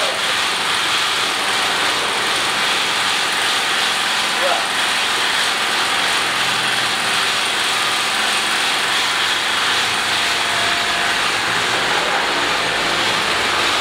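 Steady, unbroken whirring machine noise, even in level.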